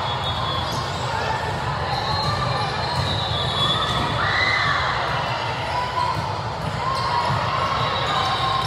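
Echoing din of a busy multi-court volleyball hall: a steady hum of players' and spectators' voices with scattered thuds of balls being hit and bounced.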